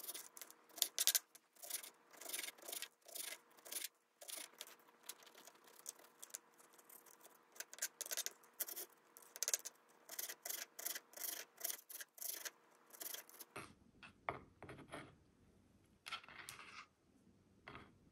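Kitchen food-prep handling: irregular small clicks, taps and scrapes, a few a second. About three-quarters of the way through the sound changes, with fewer, sparser taps after that.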